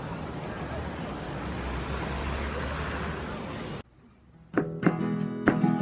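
Busy city street noise, a steady din of traffic and crowd, that cuts off suddenly about four seconds in. Half a second later an acoustic guitar starts strumming, louder than the street noise.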